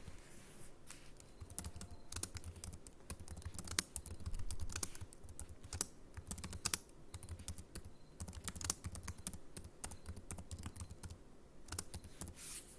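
Typing on a computer keyboard: a steady run of irregular key clicks as a command is typed out.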